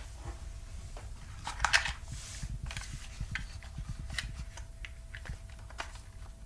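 Hands handling a plastic toy motorcycle, making scattered light clicks, taps and rubbing of plastic over a faint steady low hum.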